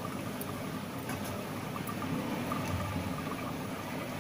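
Steady background noise, a low hum with faint hiss, with no distinct event.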